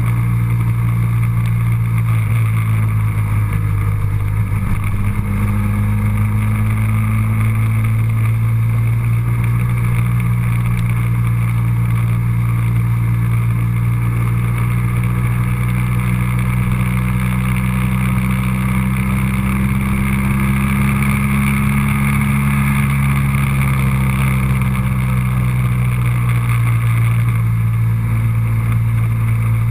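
Motor vehicle engine running steadily at cruising speed, a continuous low hum whose pitch dips briefly about four seconds in and rises a little past the middle before settling.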